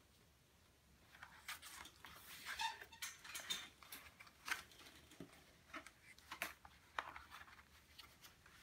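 Stiff cardstock being folded and handled by hand. The paper rustles and crackles, with a few sharp creasing clicks, busiest a couple of seconds in.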